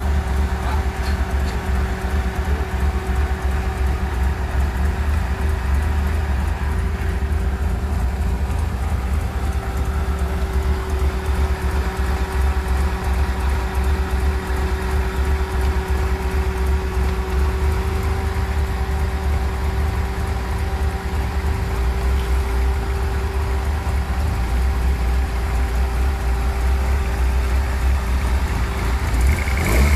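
Toyota 4A-GE 20-valve "Silvertop" twin-cam four-cylinder engine idling steadily while its adjustable cam pulleys are being set, a low rumble with a steady higher tone over it.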